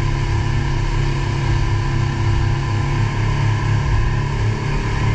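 Mercury outboard motor running steadily at speed while towing, with water rushing in the churning wake.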